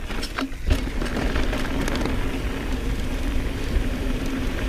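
Wind rushing over an action camera's microphone, with tyre noise and rattling from a mountain bike rolling down a rocky dirt trail. A few sharp knocks come in the first second.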